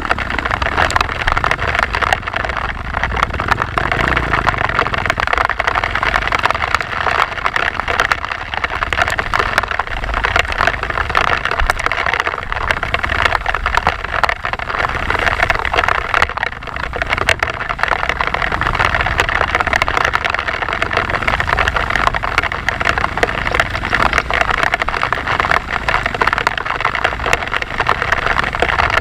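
Dirt bike engine running steadily while riding, with a dense rushing noise over it.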